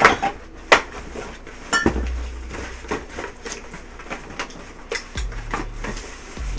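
Glass beer bottles clinking and knocking together as a six-pack is handled and pulled out: a run of irregular sharp clinks, one ringing briefly about two seconds in.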